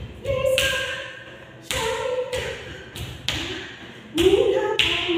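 Percussion accompanying an Odissi dance: sharp drum hits at uneven half-second to one-second gaps, each leaving a short pitched ring that bends in pitch.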